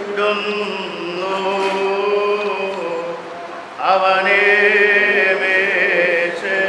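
Liturgical chanting of a baptism service: voices sing long held notes. The chant softens around the middle, then a new, louder phrase begins about four seconds in.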